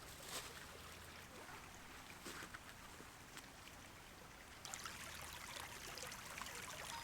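Small forest stream trickling, faint, with scattered small ticks and a footstep just after the start. The water gets louder and brighter about two-thirds of the way through.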